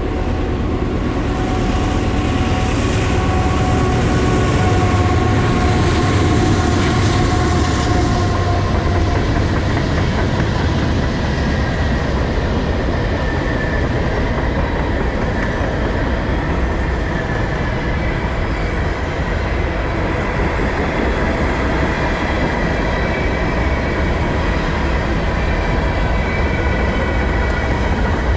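Manifest freight train rolling past: steady rumble of wheels on rail with a clickety-clack over the joints. A thin high ringing tone fades out about eight seconds in.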